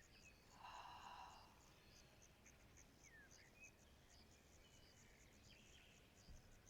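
Faint forest ambience: a high insect-like chirp repeating about three or four times a second, with a few short bird chirps. A soft hiss comes about half a second in and lasts about a second.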